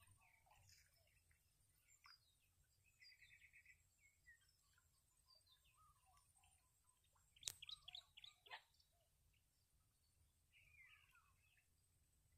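Faint bird chirps and calls over near silence, with a short rapid trill about three seconds in and scattered descending chirps later. A single sharp click near the middle is the loudest sound.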